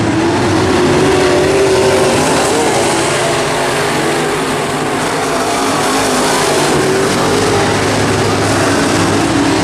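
Several race car engines running hard on the track, their pitch rising and falling as the field goes around.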